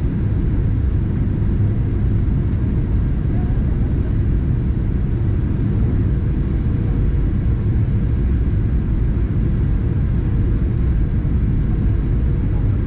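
Steady low rumble of a Boeing 737-800 airliner's cabin noise in flight, from its CFM56 engines and the airflow past the fuselage, with a faint steady hum over it. It is heard from a window seat beside the wing.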